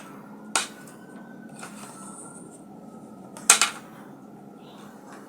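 Two sharp knocks as the parts of a laptop cooling pad are handled and set in place. The second, about three and a half seconds in, is the louder one and has a brief rattle.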